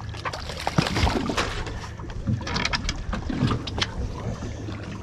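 Water splashing as a hooked small shark thrashes at the surface beside a boat and is hauled up by hand on the line, with a run of sharp clicks and taps in the middle.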